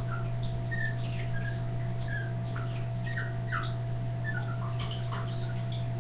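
Teacup Yorkshire terrier whimpering in many short, high whines, over a steady low hum.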